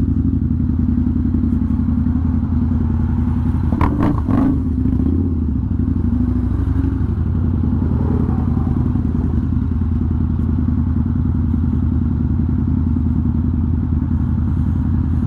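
Harley-Davidson Night Rod's V-twin engine running steadily at low speed in slow traffic, with a couple of brief knocks about four seconds in.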